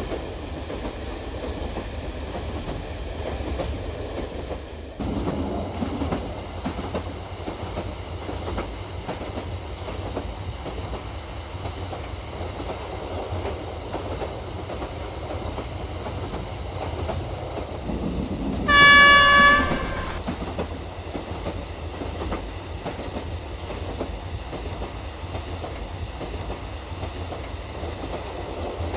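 Toy train set running along its track with a steady rumble and clatter, and one horn blast of about a second about two-thirds of the way through.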